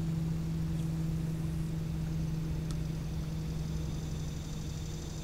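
A small motor running with a steady low hum over a faint rumble.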